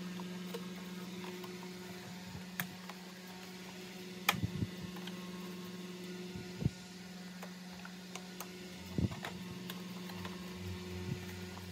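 Plastic vacuum cleaner housing parts being handled and fitted together, giving scattered clicks and knocks, the loudest about four seconds in, over a steady electrical hum.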